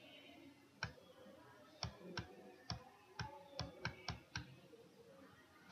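About ten faint, sharp clicks at irregular intervals, coming from the pointing device as handwritten strokes are drawn on a computer whiteboard, roughly one click per stroke.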